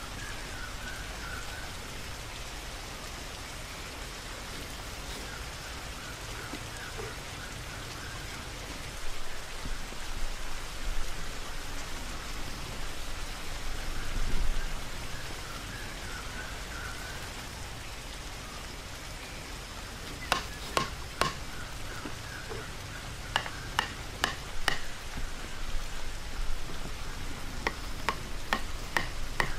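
A steady outdoor hiss with faint chirping. About two-thirds of the way through comes a run of sharp clicks and knocks, around ten of them in small groups, from hand work with sticks and vine.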